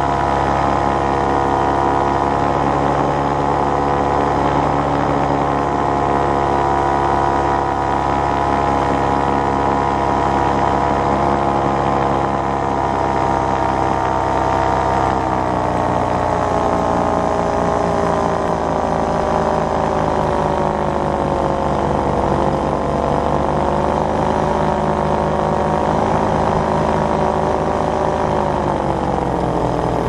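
Paramotor engine and propeller running steadily in flight. The revs ease down about halfway through, sag further, and drop again near the end.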